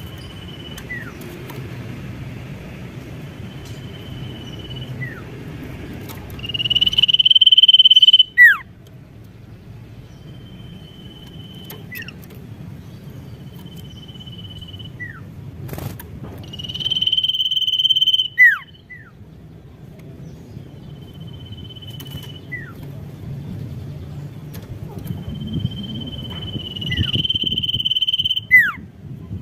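A caged common iora (sirtu/cipoh) calling: short level whistles every few seconds, each followed by a quick falling note. Three times it draws out a long, loud whistle that ends in a sharp downward slur, the last one near the end being the loudest.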